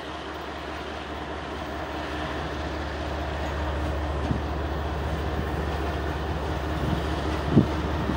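Two GE ES44AC locomotives' V12 diesel engines running as the train rolls slowly closer, growing steadily louder. A single brief thump comes about seven and a half seconds in.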